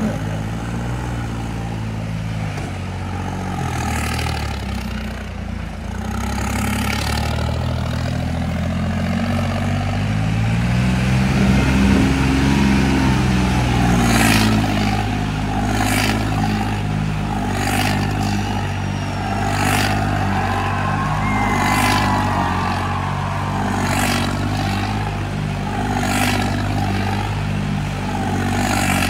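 Modified stunt tractor's diesel engine running hard as the tractor spins on its rear wheels in a wheelie, its pitch rising about ten seconds in. From about halfway on, a short rushing burst comes about every two seconds over the engine.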